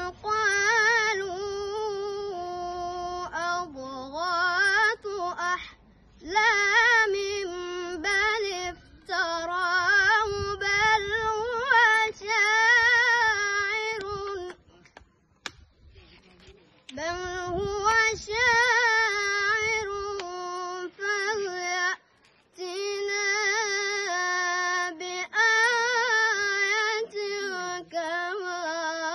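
A boy reciting the Quran in Arabic as a high, melodic chant: long, drawn-out, ornamented phrases separated by pauses for breath, the longest pause about halfway through.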